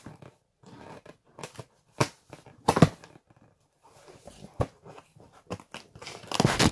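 A cardboard package being pried and torn open with a spoon: irregular tearing and scraping, with sharp bursts about two seconds in, just before three seconds, and a longer run near the end.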